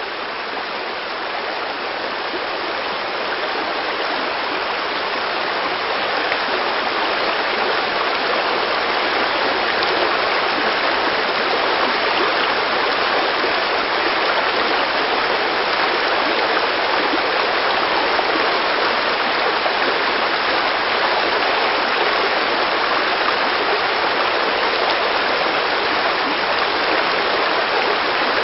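Rushing water of a stream, a steady, even hiss that fades in over the first few seconds and then holds level.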